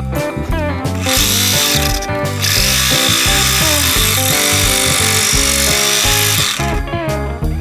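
A power tool runs in two bursts over background guitar music: briefly about a second in, then again for about four seconds before cutting off.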